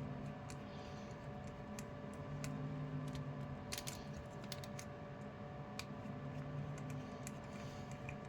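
Light, irregular clicks and taps of small plastic servo parts being handled, over a faint steady hum.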